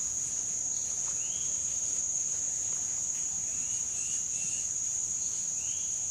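Steady high-pitched insect chorus, like crickets, droning without a break, with a few faint short chirps over it.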